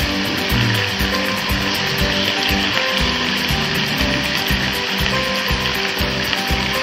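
T-bone steak sizzling on the hot ribbed plate of an electric grill, a steady frying hiss, with background music with a regular beat underneath.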